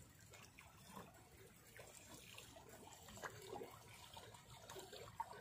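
Near silence, with faint small splashes and lapping of calm sea water.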